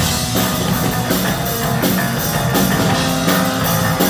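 Live rock band playing an instrumental passage with no singing: distorted electric guitars, bass guitar and a drum kit with steady drum and cymbal hits.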